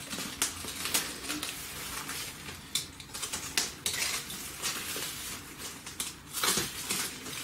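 Paper and plastic packing wrap crinkling and tearing as a bundle is pulled open by hand, with many irregular sharp crackles.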